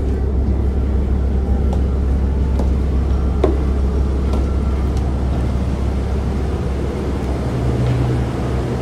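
A bus engine running, a steady low rumble that thins out about seven seconds in.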